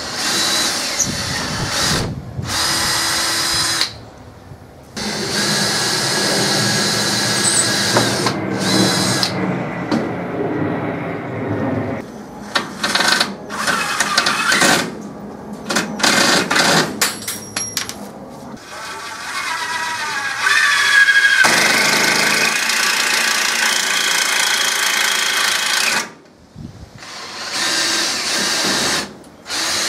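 Power drill running in a series of bursts several seconds long, with a cluster of short trigger pulls in the middle and its pitch shifting as the speed changes, drilling holes through pine perches to mount them onto the PVC pipe frame.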